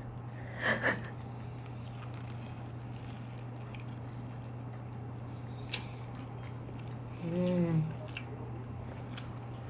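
A person biting into a flaky ube pastry just under a second in, then eating quietly over a steady low hum, with a single sharp click about two-thirds of the way through and an appreciative 'mmm' near the end.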